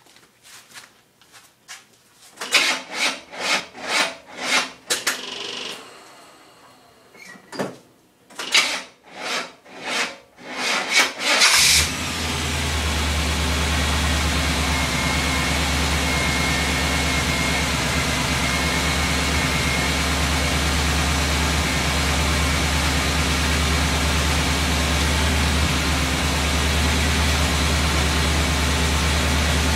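1979 Jeep CJ5 engine cranking on a bad starter: two stretches of uneven, chugging turnover, a few pulses a second with a pause between, before it catches about twelve seconds in and settles into a steady idle.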